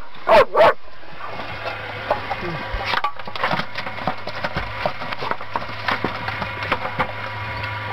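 German Shepherd giving two short high-pitched cries, then rooting in a prawn trap with her nose: many small clicks and rattles of the trap's mesh and ring frame, over a steady low hum.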